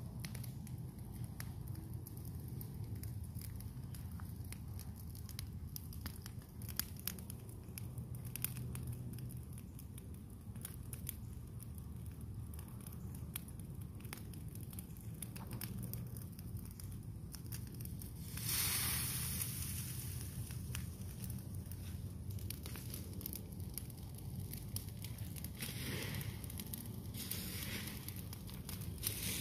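A brush pile of green leafy branches burning, with scattered crackles and pops over a steady low hum. There is a brief rush of noise about eighteen seconds in.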